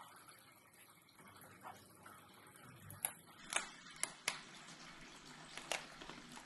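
Faint clicks and small snaps from a foam 3D puzzle model being handled, about five sharp ticks in the second half as small pieces are worked free of the punched sheet.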